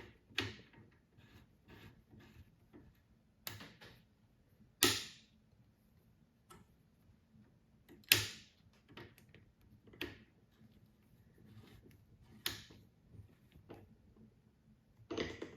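Irregular sharp clicks and taps as a muzzle brake is screwed by hand onto an AK-47's threaded barrel while its spring detent pin is held down; the loudest clicks come about five and eight seconds in.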